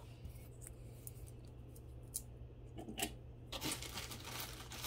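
Faint handling sounds as costume-jewelry rings are picked up and moved: a few light clicks, then a stretch of rustling or crinkling starting about three and a half seconds in.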